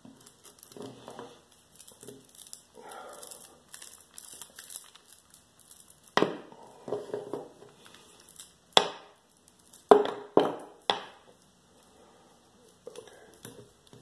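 Wire cutters snipping through the steel strands of a cable bike lock: hand-squeezed jaws biting with quiet rustling of the coiled cable, then five sharp snaps from about six seconds in as strands give way.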